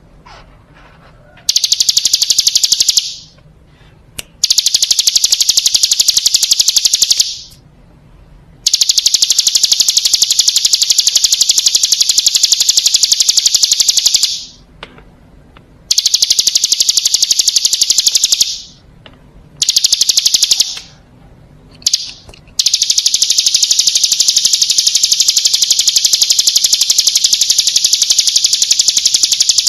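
Hill prinia (ciblek gunung) singing a high, rapid trill in loud bursts lasting a few seconds each, broken by short pauses. The longest burst, about seven seconds, comes near the end.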